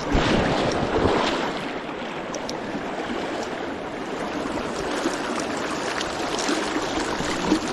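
Steady rushing of a river current, swelling louder for about the first second and a half, with a few brief knocks.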